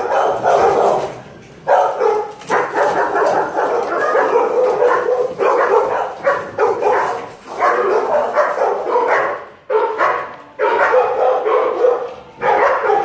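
Shelter dogs in kennels barking, several at once, the barks overlapping almost without a break, with a couple of brief lulls.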